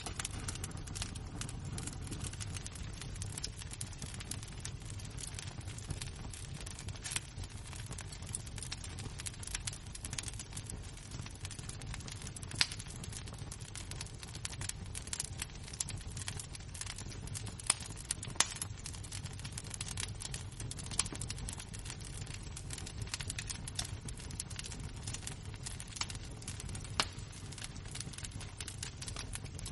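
A wood fire's embers crackling: a continuous scatter of small sharp snaps with a handful of louder pops, over a steady low rumble of the fire.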